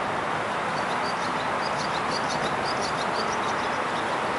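Steady rushing wind, with a run of short, high bird chirps through the middle.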